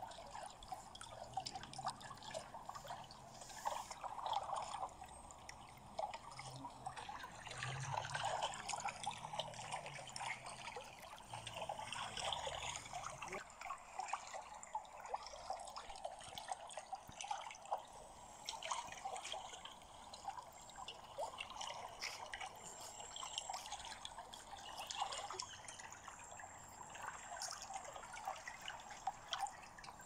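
Swimming pool water trickling and dripping, a steady patter of small drops and splashes. A faint low hum underneath stops about halfway through.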